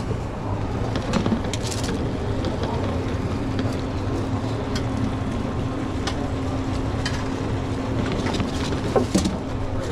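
Commercial kitchen background noise: a steady low rumble with scattered clinks and knocks of utensils and dishes, and a louder clatter near the end. A faint steady hum joins about three seconds in.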